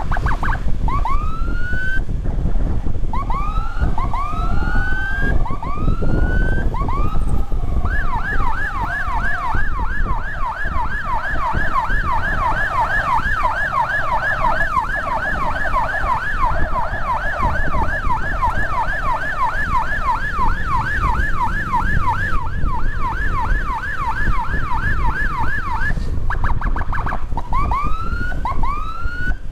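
Electronic siren: separate rising whoops about every second and a half, switching after several seconds to a fast yelp of about three sweeps a second, then back to rising whoops near the end. Engine and wind rumble from riding runs underneath.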